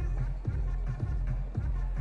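Electronic dance music with a steady thumping kick drum, about two beats a second, over a heavy bass line.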